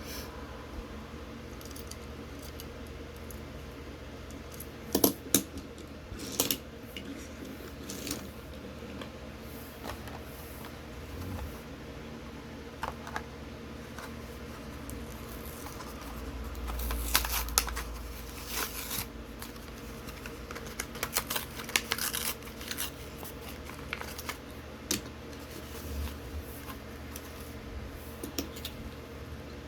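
Hands handling and opening toy-car packaging: scattered sharp clicks and taps, with stretches of plastic and cardboard crinkling and scratching, loudest about a third of the way in and again past halfway, over a steady low hum.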